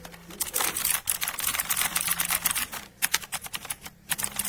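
Fast typing on a mechanical keyboard: dense runs of clacking keystrokes, broken by brief pauses about three and four seconds in.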